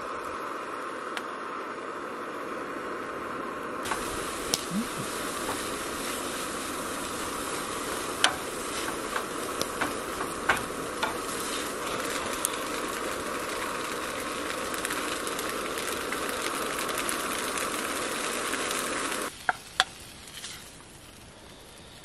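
Noodles sizzling and frying in a pan on a Primus propane camp stove, over a steady hiss. The sizzle grows much brighter about four seconds in. Scattered clicks and taps of a utensil against the pan run through it, and it all cuts off abruptly near the end.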